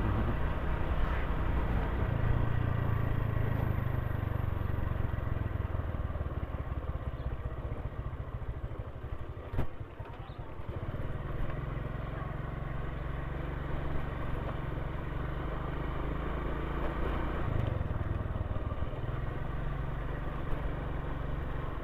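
Motorcycle engine running steadily while riding, with a short knock about ten seconds in as the engine eases off briefly, then picks up again.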